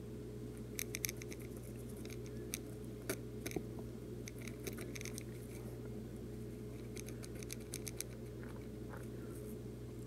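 Ballpoint pen scratching faintly on paper in short, scattered strokes, over a steady low hum.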